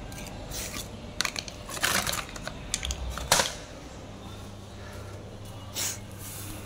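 Handling clatter from hands working on a generator's broken radiator cooling fan and pulley: a scatter of clicks and knocks, bunched between about one and three and a half seconds in with the sharpest knock near the middle, and one more near the end, over a low steady hum.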